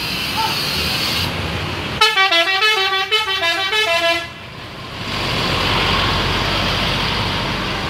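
Indonesian bus 'telolet' multi-tone musical horn playing a quick tune of short stepped notes for about two seconds, starting about two seconds in. Before and after it, a steady rushing noise.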